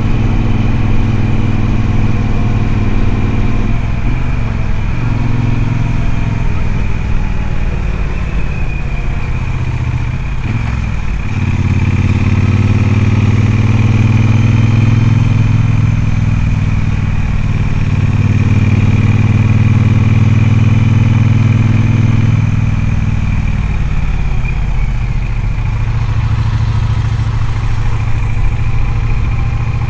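Triumph Speedmaster's parallel-twin engine running on the move. The revs dip around eight to eleven seconds in, then the bike pulls louder under throttle until about twenty-two seconds in, and then eases back to a steady cruise.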